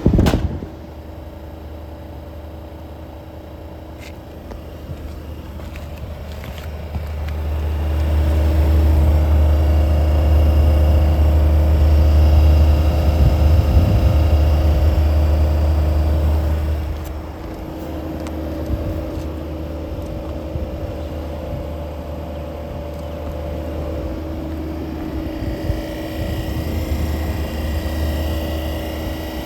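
1969 Sears Coldspot window air conditioner running, its fan and B-series compressor giving a steady hum with a constant tone. A deep low rumble swells up about a quarter of the way in and falls back just past the middle.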